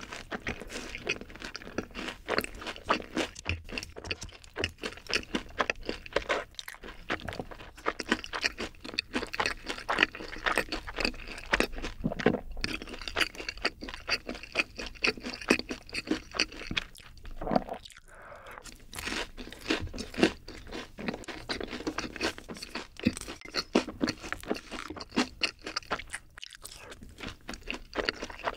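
Close-miked crunchy chewing, one crunch after another in an uneven stream, with short breaks a couple of times.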